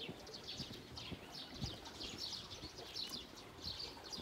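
Footsteps while walking outdoors, with birds chirping over and over in the background in short falling notes about twice a second.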